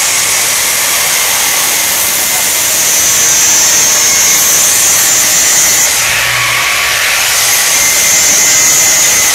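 Handheld angle grinder running, its disc grinding into the plastic base of an electric rice cooker to free the fastenings. A steady high whine that dips briefly about six seconds in, then comes back.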